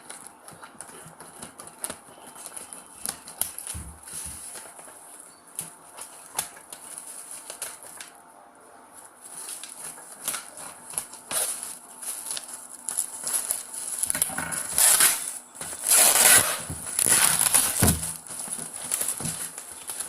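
Delivery packaging being handled: scattered small clicks and crinkles, with louder rustling and crackling for a few seconds near the end.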